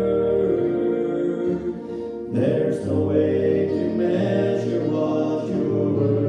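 A man singing a worship song into a microphone with musical accompaniment, his voice holding long notes; a new phrase comes in sharply after a short lull about two and a half seconds in.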